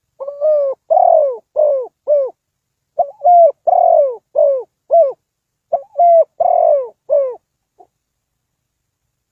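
Spotted dove cooing: three phrases of four or five low, bending coo notes each, with short pauses between the phrases.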